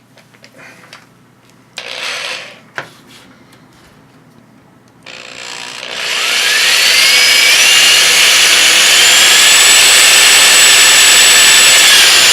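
Handheld electric drill bringing up its motor whine in steps to a steady speed about five seconds in and running on, drilling a button hole through the computer's case. Before that come light handling sounds, a short scrape and a click as the bit is changed.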